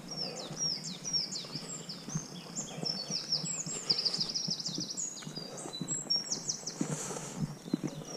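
A songbird singing a long run of quick, high, downward-sweeping notes, with a rapid trill about halfway through, over a walker's footsteps on a dirt and stone path.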